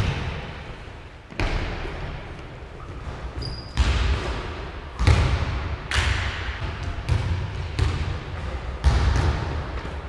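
Basketball bouncing on a hardwood gym floor: separate heavy thuds about one to two seconds apart, each echoing in the hall.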